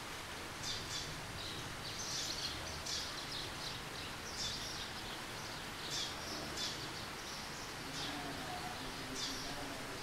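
Eurasian tree sparrow chirping: short, high chirps repeated irregularly, roughly one or two a second, over a steady hiss of rain.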